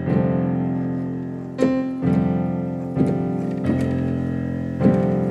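Piano playing a polychord: a G sus4 triad stacked over an F sus2 with the F in the bass, giving a full, open F6/9 sound. The sustained chord is struck anew about six times.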